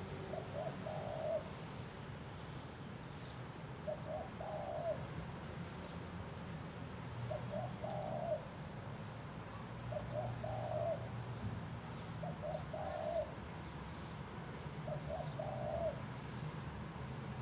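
Spotted dove decoy cooing six times, a call every two to three seconds, each a couple of short notes followed by a longer one.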